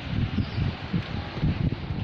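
Wind buffeting the microphone in uneven gusts, a low rumbling rush over general outdoor noise.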